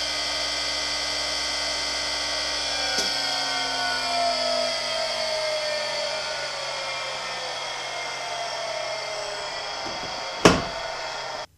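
Harig Super 612 surface grinder's three-phase spindle motor, fed from a VFD, running with a steady whine. After a click about three seconds in, its tones slowly fall in pitch as it coasts down. A sharp knock near the end.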